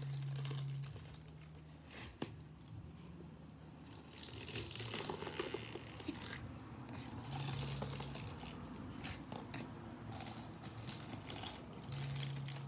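A hand squeezing and poking foam-bead slime whose top has dried into a crust (iceberg slime), with many small crackles and crunches as the crust and beads give way.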